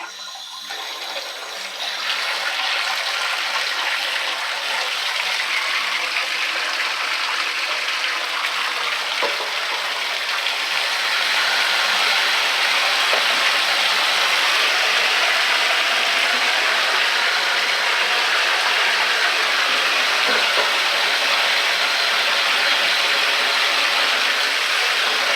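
Water running hard from a bathtub and shower faucet, turned on at the start and getting louder about two seconds in and again around eleven seconds in, as a newly replaced shower cartridge is tested.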